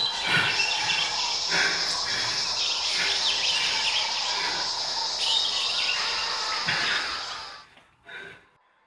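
A loud, dense wall of sound-effect noise: a steady shrill whine over a clutter of chirps, crackles and swishes. It cuts off suddenly near the end, leaving one brief short sound.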